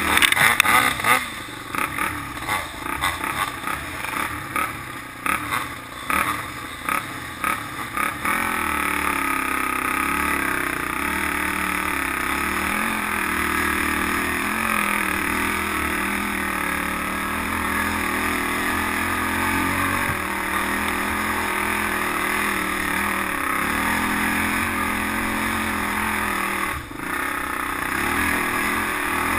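Off-road engines running hard on a dirt trail: for the first several seconds the sound comes in choppy, uneven revving bursts with clattering, while a dirt bike just ahead throws up dirt. Then the Polaris Outlaw 500 quad's single-cylinder four-stroke engine settles into a steady drone under throttle, dipping briefly near the end.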